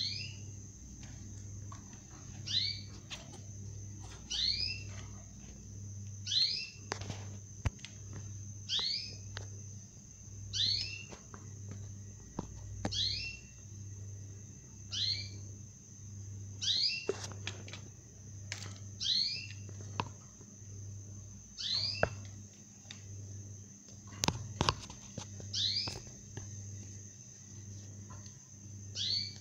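A bird repeating a short, high, falling two-part call about every two seconds, over a steady high-pitched whine.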